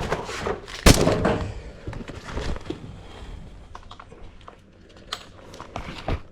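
A single loud gunshot about a second in, with a short ringing tail, followed by scattered fainter clicks and knocks.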